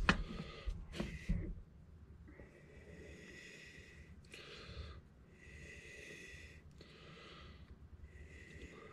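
A few sharp clicks of small chainsaw parts being handled, then a series of soft hissing breaths, each about a second long.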